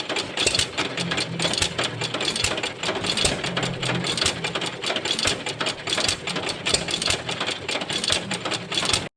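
A 3/4 HP Bluffton hit-and-miss engine running and driving a wooden washing machine: a steady, fast mechanical clatter of repeated clicks that cuts off suddenly near the end.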